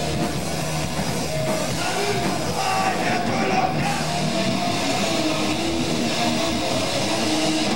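Live heavy rock band playing loud distorted electric guitar, bass guitar and drums, with a shouted vocal over it.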